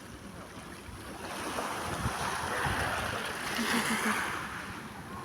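Sea waves washing in at the shore, swelling about a second in and easing off near the end, with wind buffeting the microphone.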